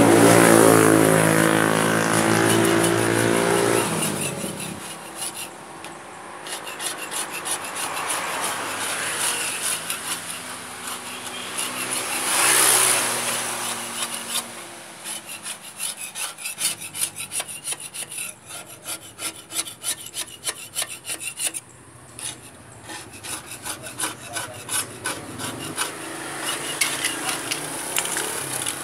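A flat metal scraper dragged over paint softened by paint remover on a metal motorcycle part, scraping in many short, repeated strokes, most densely in the second half. A passing vehicle's engine is the loudest sound over the first few seconds.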